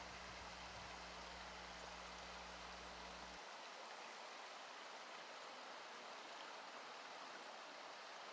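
Faint, steady rush of a shallow creek running over rocks. A low steady hum underneath stops suddenly about three and a half seconds in.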